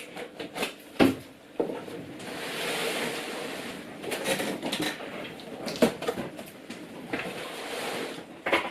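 A large cardboard box being handled and opened, with several sharp knocks and three longer rasping stretches as the box is worked open.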